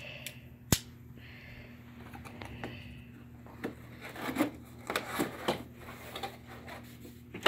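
Hands working at a cardboard box to free missed packing tape: scattered clicks, scrapes and rustles of tape and cardboard, with one sharp click about a second in.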